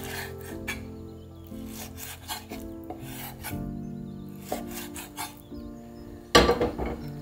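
A chef's knife cuts through raw fish onto a wooden chopping board, a series of short scraping knocks, over steady background music. Near the end there is a loud clatter as a non-stick frying pan is set down on a gas stove's grate.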